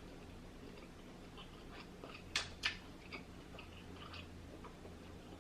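Close-up chewing of a large mouthful of lobster tail meat: soft wet mouth clicks and smacks, with two sharper clicks about two and a half seconds in.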